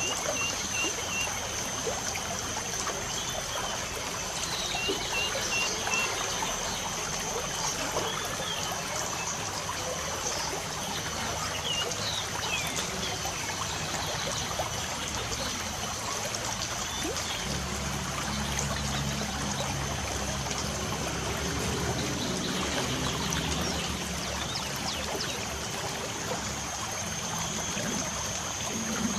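Steady hiss of light rain falling, with small birds chirping a few times in the first half over a thin, steady high-pitched whine. A low hum comes in about two-thirds of the way through.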